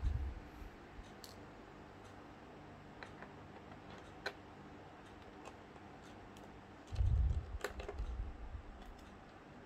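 Small scattered clicks and taps of a screwdriver and loose parts being handled while a MacBook Pro is taken apart. A louder low bump comes about seven seconds in, then a few more soft knocks.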